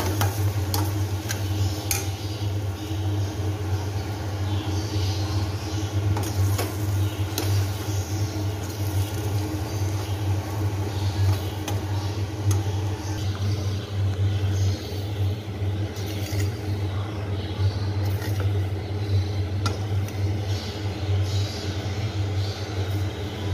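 A spatula scraping and tapping in a kadai as cut idli pieces are stirred into the onion-tomato masala, with irregular light clicks over a steady low hum.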